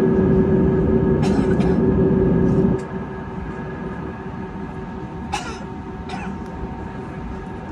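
Airbus A320neo cabin noise while taxiing: a steady hum with a constant tone underneath. A heavier rumble fills the first few seconds and then cuts off suddenly. A few short clicks or hisses follow.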